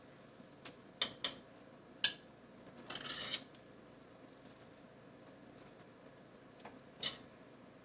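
A metal utensil clinking against a metal pan and a plate as food is served from the pan: a handful of sharp clinks, spaced out, and a short scrape about three seconds in.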